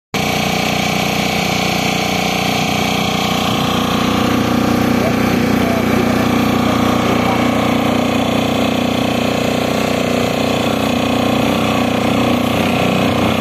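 Small motorboat's engine running steadily at an even pitch as the boat cruises, with water rushing along the hull.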